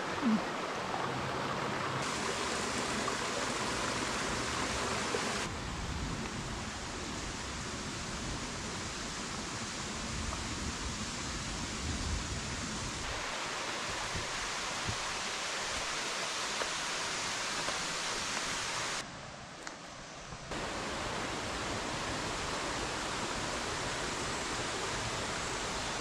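Steady rushing of river water over rocks, a constant even hiss whose level and tone shift abruptly a few times, dropping briefly a little before the end. A short bump sounds just after the start.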